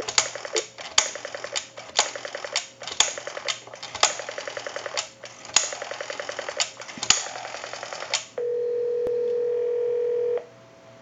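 Automatic Electric Model 21 rotary telephone dialing out a number, its dial pulses heard as runs of clicks over the line, digit after digit for about eight seconds. A steady ringback tone then sounds for about two seconds as the call goes through.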